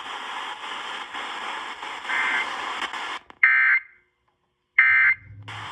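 Emergency Alert System end-of-message data bursts over an FM radio: three short, loud digital buzzes a little over a second apart, the last two separated by dead air, marking the close of the tornado-drill monthly test. Before them the radio gives a steady hiss of noisy reception.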